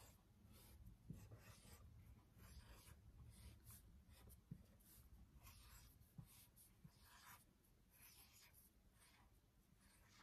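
Faint scratching of a marker writing letters on a handheld board, in many short, irregular strokes.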